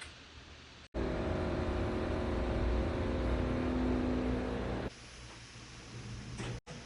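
Split air conditioner running with a loud steady hum and several held droning tones over a low rumble: the abnormal noise of a split AC with a noise problem. It cuts in suddenly about a second in and drops away abruptly near five seconds.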